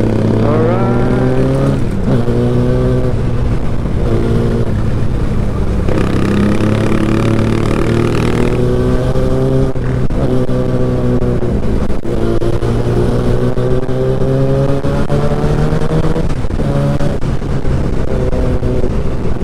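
Yamaha R6 sport bike's inline-four engine pulling hard under acceleration, its pitch climbing and dropping back several times as it shifts up through the gears, heard from the rider's position with a low wind rumble underneath.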